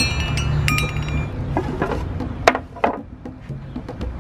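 Hanging metal tube wind chimes clinking, with several strikes ringing on in the first second or so. Then a few separate knocks follow.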